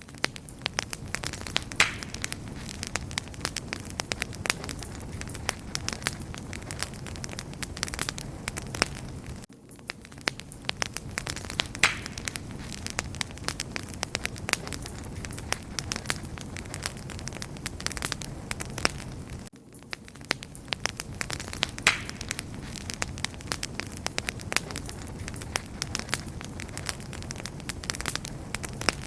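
Wood fire crackling: many small sharp pops and snaps over a steady low rush of burning. The same stretch of sound repeats about every ten seconds, with a short dip between repeats.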